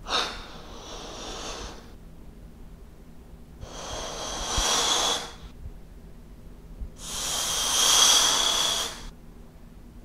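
Latex balloon being blown up: three long puffs of air rushing into it, each about two seconds long with a short pause between them, the last the loudest.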